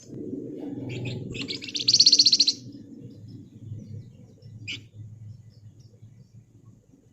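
Flamboyan (wergan Jawa) songbird giving a loud, rapid rattling trill (ngebren) of about a second, starting about one and a half seconds in, with single short high chirps before it and again later.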